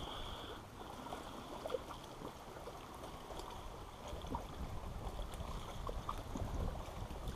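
Water lapping softly against a small fishing boat, with a low wind rumble on the microphone that grows toward the end and a few faint ticks of rod and line handling.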